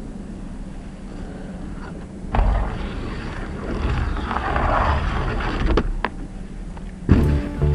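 Skis scraping along the metal edge of a terrain-park rail box. The scrape starts suddenly about two seconds in and runs for about three and a half seconds, then ends with a couple of sharp clacks as the skis come off. Acoustic guitar music starts near the end.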